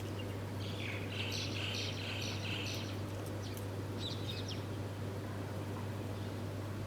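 Wild birds chirping: a quick run of about six chirps in the first three seconds, then a few short, scattered chirps. A steady low hum runs underneath.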